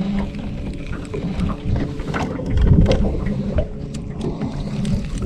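Electric trolling motor running with a steady hum, with several short, irregular knocks over it.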